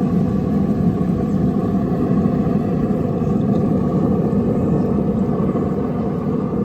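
A steady, loud low rumble with a constant hum over it.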